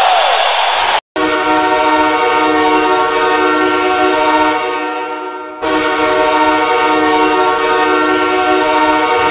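Ice hockey goal horn: a loud air-horn chord of several steady notes held in one long blast of about four seconds that fades at its end, then a second blast starts. Before the horn, music cuts off abruptly about a second in.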